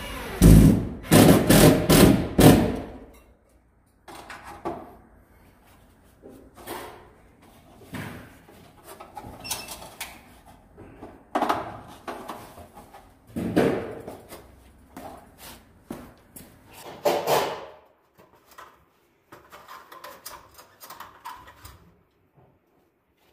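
Knocks and clatters of tools and metal fixture parts being handled and set down. There is a loud run of several sharp clatters in the first three seconds, then scattered single knocks and clunks with quiet gaps between.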